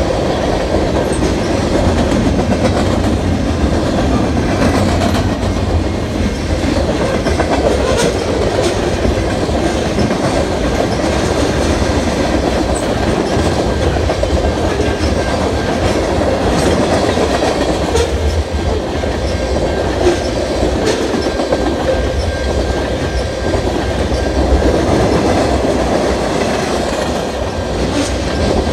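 Freight train of tank cars and covered hopper cars rolling past close by: a steady, loud rumble of steel wheels on the rails, with scattered clicks and knocks as the wheels pass over the track.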